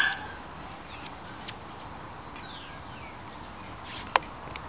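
A border collie's high yip cutting off at the very start, then a quiet outdoor background with faint bird chirps and one sharp, very short sound about four seconds in.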